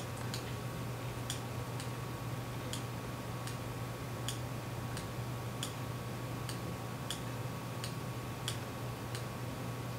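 Regular ticking, about three ticks every two seconds, over a steady low hum.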